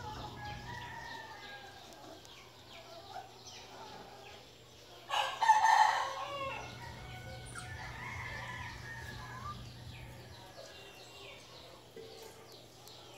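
A rooster crows once, about five seconds in; this is the loudest sound. Fainter short bird calls and clucks come and go around it.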